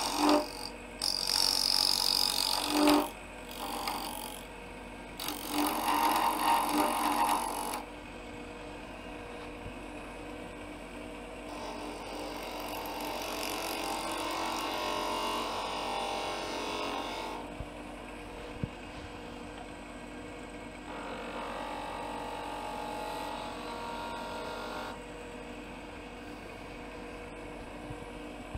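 Wood lathe running while a skew chisel takes peeling cuts on the spinning wooden blank. Loud, uneven bursts of cutting come in the first several seconds. After that the lathe runs with a steady hum, and softer cutting swells in and out twice.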